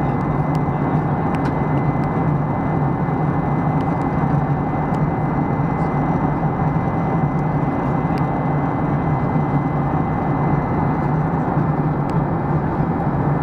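Steady cabin drone of a Boeing 737-800 in flight, heard from a window seat, with a few faint clicks.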